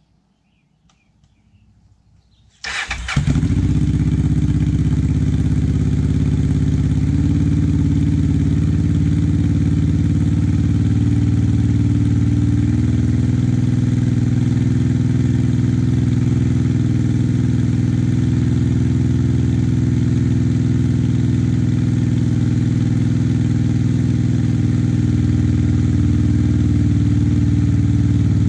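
1990 Honda Hawk GT 650's V-twin, straight-piped through a Delkevic slip-on exhaust with no baffle, cranking briefly and catching on a cold start about three seconds in, then idling steadily.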